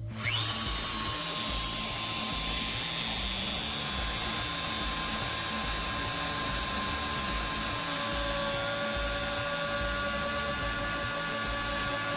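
Electric router motor spinning up with a brief rising whine, then running steadily at full speed with a high whine; a further lower tone joins about eight seconds in.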